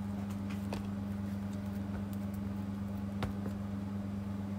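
Steady low electrical hum, with faint clicks and taps of trading cards being handled and sorted; one sharper click about three seconds in.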